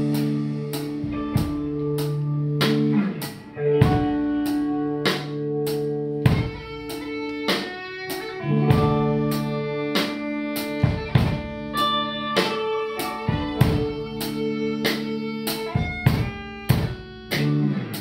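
A live band playing a song with a drum kit, electric bass and electric guitar. Drum hits come about two to three a second under long held notes and a moving melody line.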